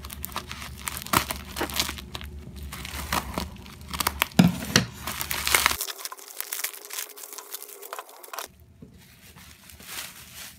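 Plastic crinkling and tearing as a plastic courier bag is cut open with scissors and the bubble wrap inside is handled, in dense irregular crackles. Loudest about halfway through, fainter in the last couple of seconds.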